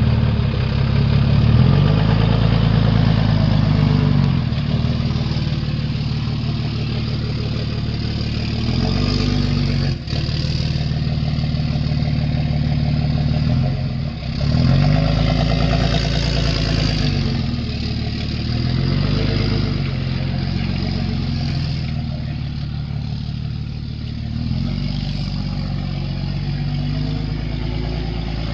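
Dodge Ram 3500's 5.9-litre Cummins inline-six diesel idling and being revved about five times, the engine note rising and falling with each rev.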